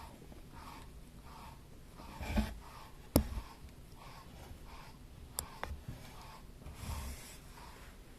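Kittens moving about a small room: soft thumps and rustling, with two sharp clicks about three and five seconds in.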